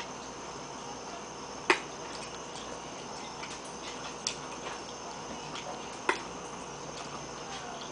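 Spoon clinking against a ceramic soup bowl three times, roughly two seconds apart, with the first clink the loudest, over a faint steady high hiss.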